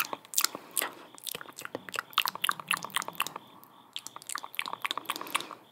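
Close-miked ASMR mouth sounds: a rapid, irregular run of wet clicks and smacks from lips and tongue, with a short pause partway through.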